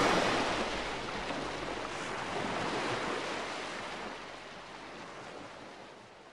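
A wash of hiss-like noise with no notes, closing out an electric-guitar track once the guitar has stopped. It swells slightly about three seconds in, then fades away to nothing.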